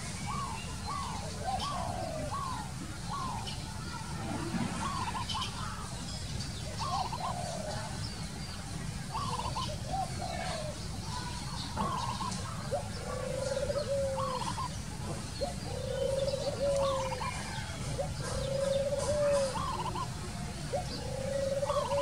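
Spotted dove cooing: from about halfway in, a run of low, even coos, each about a second long, repeated every second or two. Before that, another bird gives quick falling notes, about two a second, over a steady low rumble.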